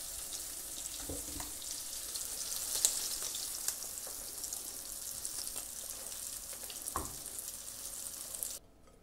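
Garfish fillets sizzling steadily in hot oil in a frying pan, done and golden, with a few light knocks about a second in and again near seven seconds. The sizzle cuts off suddenly near the end.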